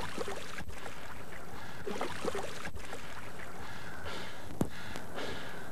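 Steady rushing noise of river water with a few faint splashes, and one sharp click about four and a half seconds in.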